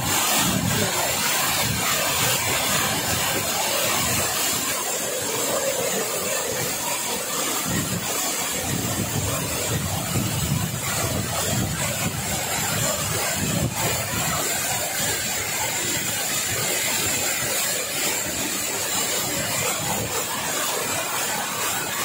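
Waterfall pouring down as a curtain of water, heard from behind the falls: a steady rush of falling water splashing into the pool below.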